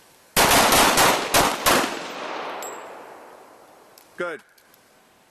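A ragged volley of several handgun shots from a line of shooters firing on command, packed into about a second and a half. Their echo rings out and fades over the next couple of seconds.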